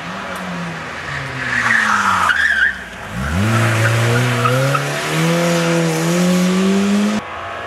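Rally cars on a tarmac stage: tyres squeal briefly as a car slides into a corner, then, after a break, a rally car's engine revs hard and rises in pitch as it accelerates out of a hairpin, dipping once at a gear change before climbing again and cutting off suddenly near the end.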